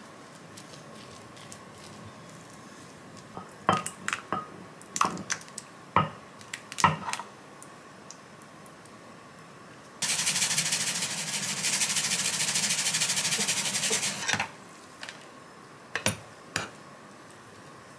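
Metal spoon clinking and knocking against a ceramic baking dish and pot while rice and mapo tofu are served, a handful of sharp taps. Midway comes a steady rough hiss lasting about four seconds that starts and stops abruptly, then a couple more knocks of a ladle on a pot.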